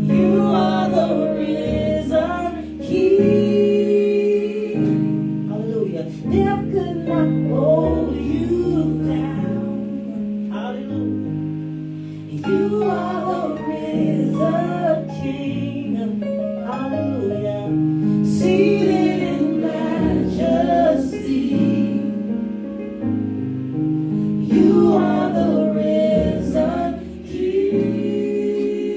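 Gospel worship song: singing over sustained chords from the accompanying instruments.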